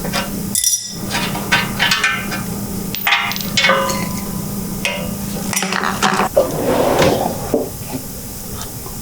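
Metal parts and tools clinking and knocking in a series of separate strikes, some ringing briefly, over a steady low hum.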